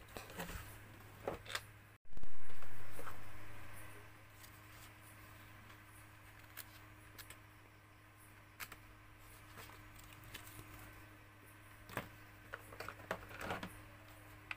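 Hands handling a plastic tool case, a paper instruction manual and a plastic battery charger: scattered rustles, light clicks and knocks, with a steady low hum underneath. About two seconds in the sound briefly cuts out.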